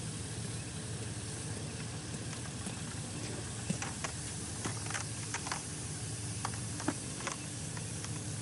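Steady low machine hum under a hiss as new plastic water pipe is pulled into the ground by trenchless pipe-bursting equipment. Scattered light clicks and ticks come in about halfway through.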